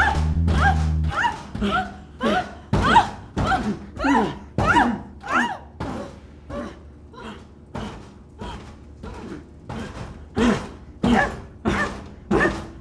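A woman's rhythmic cries or moans, about three every two seconds, each with a sliding pitch, accompanied by dull thumps.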